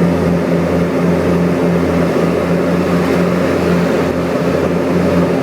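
Cougar light aircraft's propeller engines running steadily at takeoff power, a continuous drone with a regular wavering beat about twice a second.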